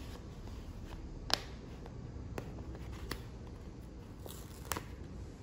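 A large paper-backed sticker sheet being handled and peeled: a handful of sharp crackles, the loudest about a second in, over a low steady room hum.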